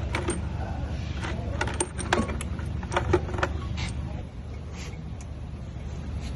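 Metal engine parts and tools clinking and tapping in quick irregular clicks, most of them in the first four seconds, over a steady low rumble.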